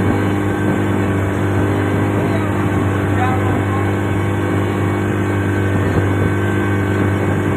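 Boat engine running steadily, a constant low drone, with faint voices about three seconds in.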